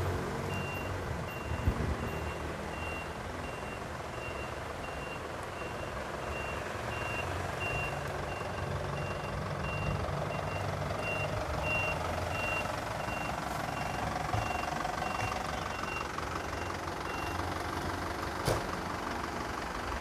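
Reversing alarm of an Isuzu Elf minibus sounding a steady series of high, evenly spaced beeps as it backs up, over the low rumble of its running engine. The beeping stops near the end, and a single short knock follows.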